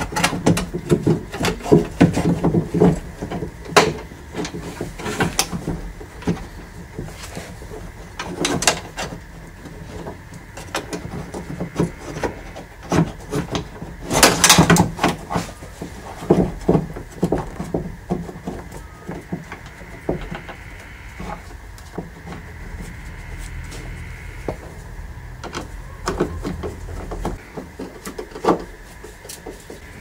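Irregular clicks, knocks and rattles of a Toyota Previa front door handle and its clips being worked back into the door, with a louder cluster of knocks about fourteen seconds in.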